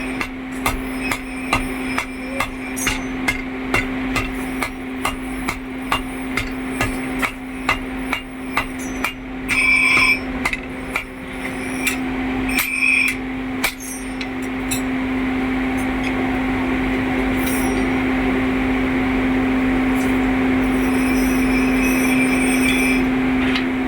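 Hammer blows on hot iron at a forge, struck in a steady rhythm of about two a second with a metallic ring on some strikes, over a steady machine hum. About 14 seconds in, the hammering stops and a steady, louder machine noise takes over.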